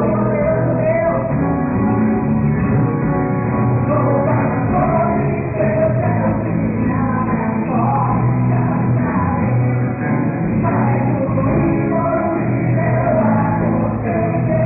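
A live band playing a rock-style church song with singing over the backing, recorded muffled with no treble.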